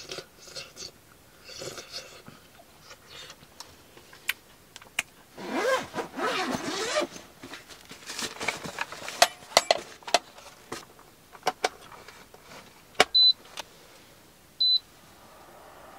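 Rustling and clicks of things being handled, then two short, high electronic beeps near the end as the power button of a small electric fan heater is pressed to switch it on.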